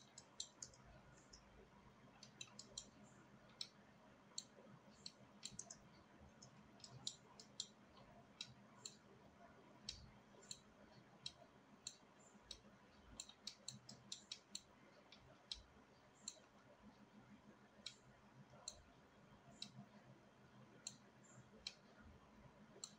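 Faint, irregular clicks of a computer mouse, several times a second at times, over a low steady hum.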